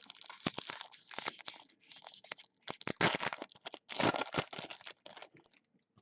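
Foil trading-card pack wrapper being torn open and crinkled by hand: a run of irregular crackling rustles, loudest about three and four seconds in, dying away near the end.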